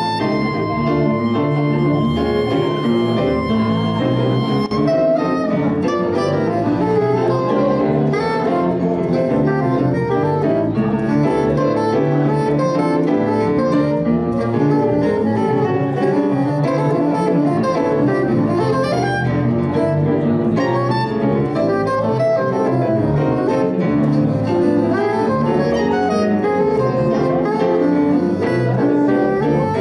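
Live jazz: a soprano saxophone playing over electric bass and piano, holding one long note in the first few seconds before moving on.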